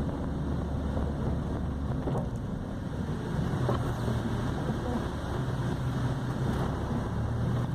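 Chevrolet Corsa Sedan's 1.8 four-cylinder engine running steadily, heard from inside the car as a low drone with road noise.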